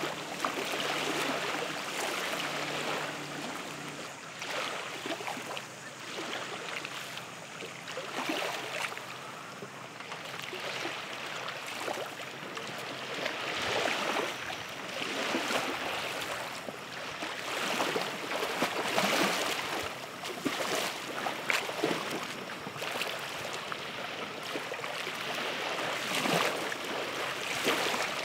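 Running water rushing and splashing, swelling and fading irregularly. A low hum underneath stops about four seconds in.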